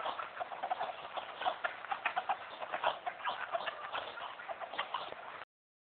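Chickens at close range: a busy, irregular patter of short taps and brief clucks, cutting off suddenly near the end.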